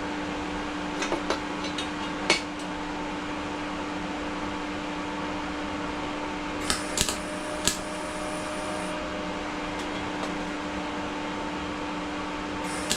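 Welding machine's cooling fan running with a steady hum, with a few sharp metal clicks and taps about two seconds in and again about seven seconds in.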